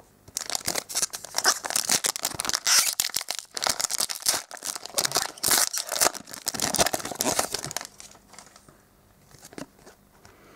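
Shiny plastic wrapper of a trading card pack crinkling and tearing as it is ripped open and pulled off the cards, for about eight seconds; then it goes quiet apart from a few soft taps.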